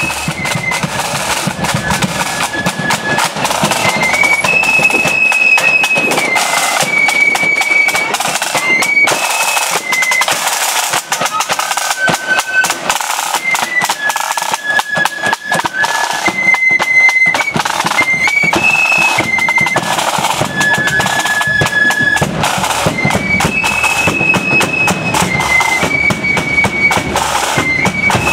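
Marching flute band playing a tune: flutes in unison carry a melody of held notes stepping up and down, over the rapid strokes of side drums.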